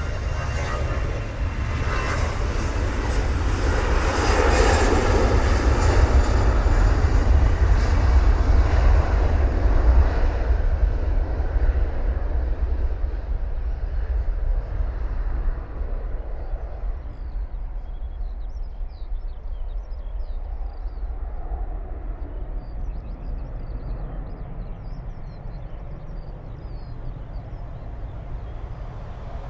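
Airbus A320-200 jet airliner's engines passing by: a loud, even jet noise that peaks a few seconds in and then slowly fades as the aircraft moves away.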